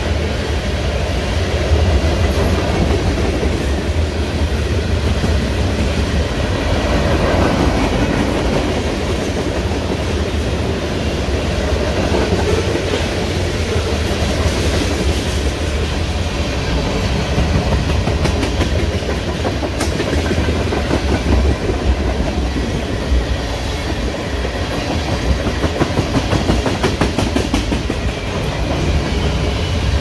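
Heavy freight train rolling past at speed: a steady low rumble of cars and wheels on the rails, with a quick run of clickety-clack wheel strikes over rail joints near the end.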